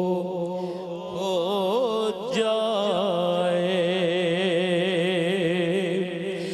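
Elderly man singing an Urdu naat, a slow devotional melody drawn out on long held notes with wavering ornaments.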